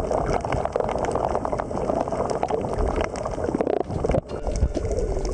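Underwater sound picked up by the camera: a dense, muffled water noise with bubbling and many small crackling clicks. It briefly drops out about four seconds in.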